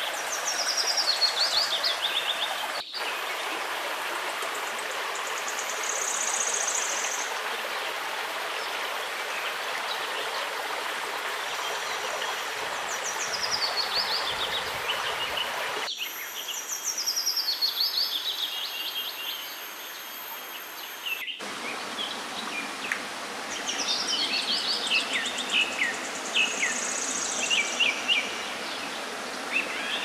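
Stream water running over rocks, a steady rush that changes abruptly three times, with a bird repeatedly singing a falling run of short high notes and a short high buzz twice.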